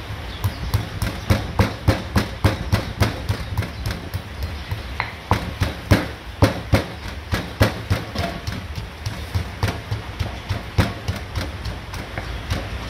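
Granite mortar and pestle pounding garlic, coriander root and pepper into a paste: steady, rhythmic knocks of the stone pestle, about three a second.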